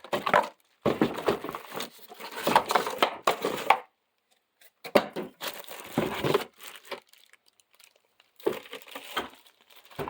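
Packaging being handled during an unboxing: crinkling, rustling and some tearing in several irregular bursts, with two short pauses.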